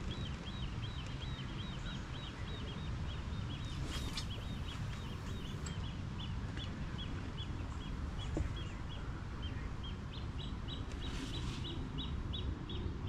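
A bird calling over and over in short, high chirps, about two or three a second, over a steady low rumble.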